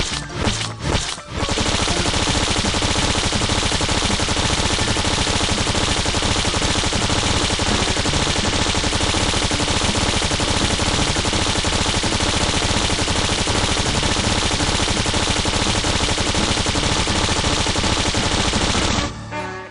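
Sound effect of continuous rapid machine-gun fire, a dense run of shots with no break for about 17 seconds, starting after a few separate hits and stopping abruptly near the end.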